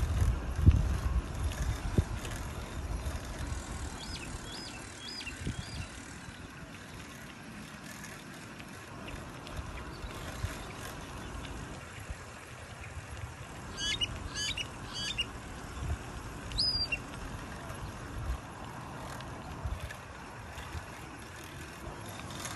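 Bicycle rolling along a paved path, with low tyre and wind rumble on the microphone that is strongest in the first two seconds. Birds chirp a few times: a short run of high notes about four seconds in, a quick burst of chirps around fourteen seconds, and a single call just before seventeen.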